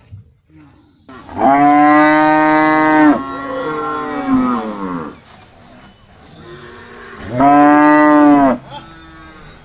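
Cow mooing loudly twice. The first long moo holds a steady pitch, then slides down as it fades; the second is shorter and held steady.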